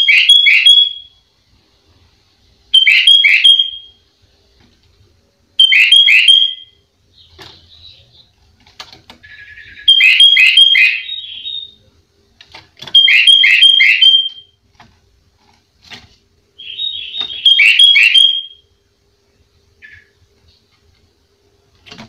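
Caged sooty-headed bulbul (kutilang) singing: six short whistled phrases of a few quick notes each, repeated every few seconds, with faint chirps between them.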